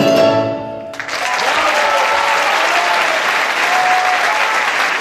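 An Armenian folk ensemble's closing chord rings and fades out within the first second, then the audience breaks into steady applause.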